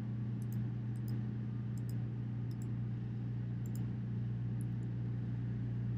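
A steady low electrical hum with faint computer mouse clicks over it, mostly in quick pairs, about a dozen in all over the first five seconds.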